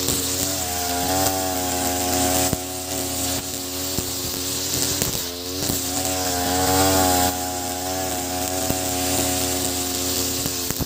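Ogawa BG330 33cc two-stroke brush cutter running at high revs, spinning square 2.4 mm nylon trimmer line through grass. The engine note dips briefly a couple of times and climbs back as the head sweeps through the grass.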